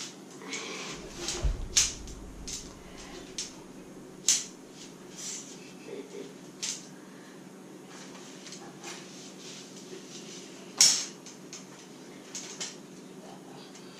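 Segmented tent poles of a Marmot Tungsten 2-person tent being handled and fitted together: irregular sharp clicks and clacks of the pole sections, with a low thump in the second second and the loudest click about eleven seconds in.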